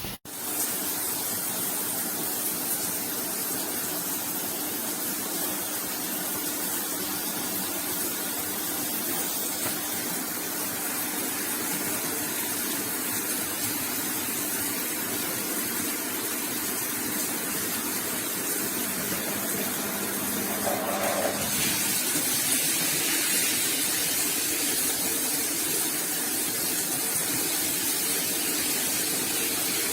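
Shower water spraying steadily from the shower column, a continuous hiss of falling water. About two-thirds of the way through the spray becomes brighter and hissier.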